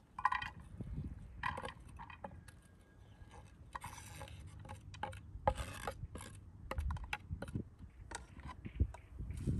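Knife blade scraping chopped food off a round wooden board into a metal pot: a series of short scrapes with light knocks of the blade on the board and pot rim.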